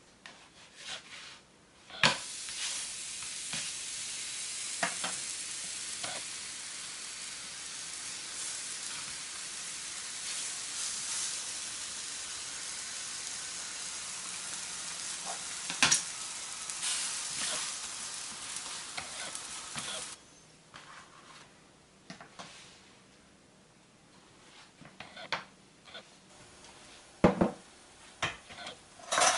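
Buttered roti sizzling on a hot flat griddle: a steady hiss that starts with a click about two seconds in and cuts off suddenly about twenty seconds in. After that, a few light clicks and knocks, louder near the end.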